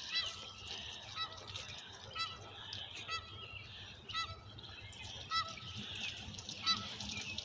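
Canada geese honking, one short honk about every second, over and over.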